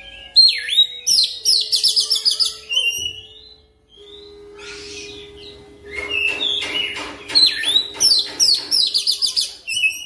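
Oriental magpie-robin singing a fast, rolling song. It comes in two runs of rapid repeated high whistled notes: the first opens with a sharp downward sweep and stops about three seconds in; after quieter, scratchy notes, the second starts about six seconds in and runs almost to the end.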